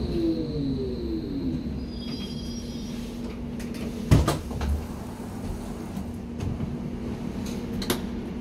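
Hamburg U-Bahn DT5 train's electric traction drive whining down in pitch as it brakes to a stop, over a steady hum. A loud clunk comes about four seconds in as the door release comes on, and a sharper click near the end as the sliding passenger door opens.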